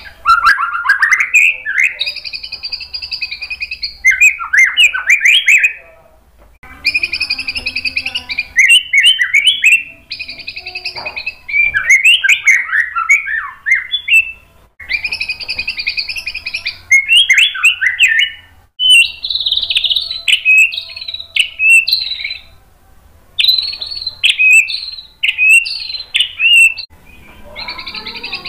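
White-rumped shama singing a string of loud, varied phrases a few seconds apart. Each phrase starts with a held, buzzy note and breaks into fast, twittering runs, with short pauses between phrases.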